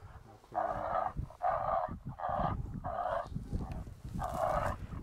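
Dog-like canine yelps, five short rough calls in quick succession with a short pause before the last.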